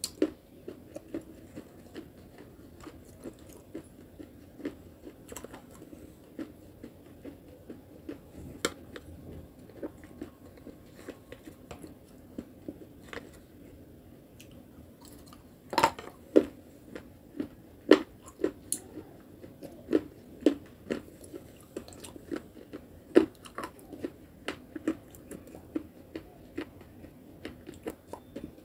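Close-up mouth sounds of a person chewing and biting ice cream with a gritty clay paste: soft wet chewing, with sharp crunches that come thicker and louder from about halfway through.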